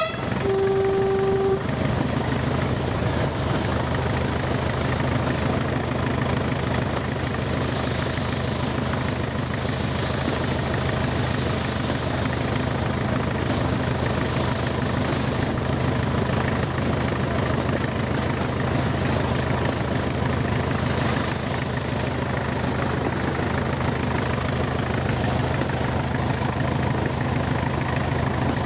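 Class 20 diesel locomotive working hard uphill: its English Electric eight-cylinder diesel engine gives a steady, heavy drone, with a high whistle that swells and fades several times. A short, low horn note sounds during the first second and a half.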